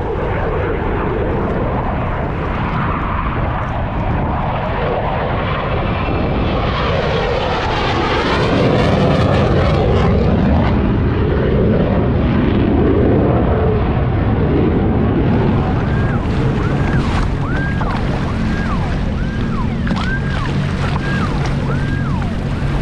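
F-16 Viper fighter jet making a pass overhead: a steady jet roar that builds, sweeps in pitch and is loudest a little before the middle, then eases. Wind and waves are on the microphone throughout, and near the end a run of short falling whistles repeats several times.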